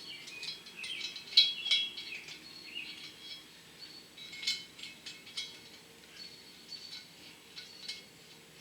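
Irregular small metallic clicks and taps from a hand valve-spring compressor and steel parts on a bare cylinder head as a valve spring, retainer and keepers are fitted; the sharpest clink comes about a second and a half in. Birds chirp faintly in the background.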